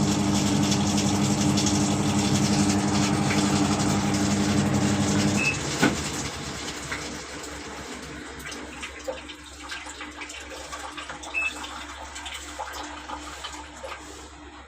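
Midea top-load washing machine running water with a steady hum, which stops abruptly about five and a half seconds in with a click. Afterwards only faint water sounds and a few small clicks remain.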